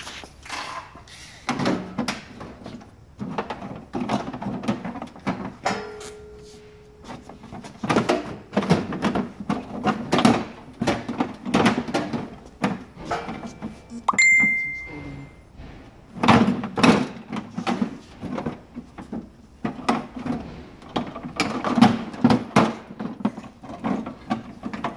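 Plastic end cover of an HP Designjet 5500 printer being handled and worked loose by gloved hands: a long run of irregular knocks, thunks and rattles. A short ringing ding comes about fourteen seconds in.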